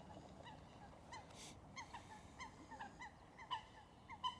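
Geese honking faintly and repeatedly, short calls following one another two or three times a second.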